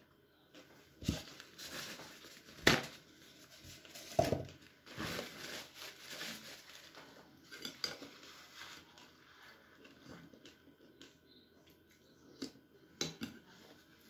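A metal spoon clinking against a ceramic soup bowl and a plate during a meal. There are a few sharp knocks, the loudest just under three seconds in, with softer handling noises between them.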